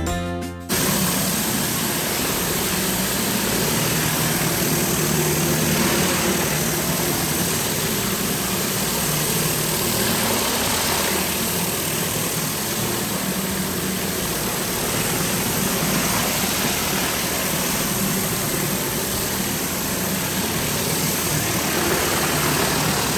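Engine-driven pressure washer running steadily, with an even hiss of high-pressure water spray over the engine hum. It cuts in abruptly less than a second in.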